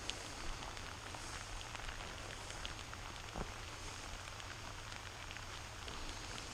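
Steady moderate-to-heavy rain with scattered sharp drop ticks close to the microphone.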